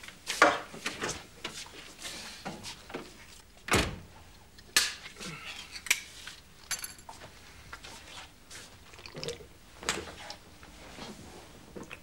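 Kitchen clatter: scattered knocks, clinks and thuds of things being handled and set down on a counter, with one heavy thunk about four seconds in.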